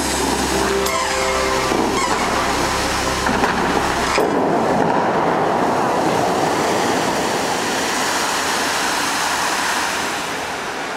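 Large musical fountain's water jets rushing and splashing down into the pool. The last of the show music fades out about four seconds in, and the water noise drops a little near the end.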